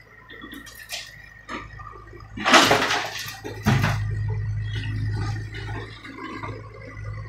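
Broken old asphalt tipped from a Komatsu PC78 excavator's bucket into a dump-truck bed: a few knocks, then a loud rushing clatter about two and a half seconds in. A second hit follows, after which the excavator's diesel engine runs with a steady low hum, with a thin steady whine throughout.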